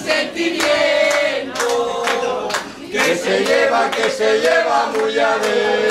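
A group of people singing a chant together, their voices holding long notes.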